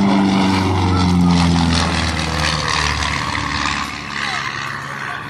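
Propeller airplane making a low pass overhead: a loud engine and propeller drone that drops in pitch as it goes by, then fades as it flies away.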